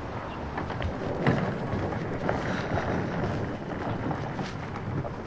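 Steady low rumbling outdoor ambience, with a few light clicks scattered through it.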